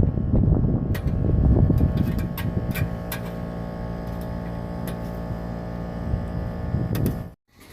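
A steady mechanical hum with rough low rumble over it at first; it cuts off abruptly near the end.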